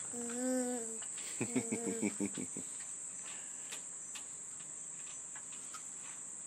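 Insects chirring as a steady, even high-pitched drone. Near the start a small child calls out with one drawn-out vowel, then babbles in a quick run of short syllables.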